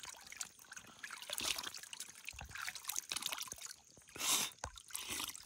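Spring water trickling and dripping from cupped hands back into a basin as a man drinks from them, with many small irregular drips and a brief louder rush about four seconds in.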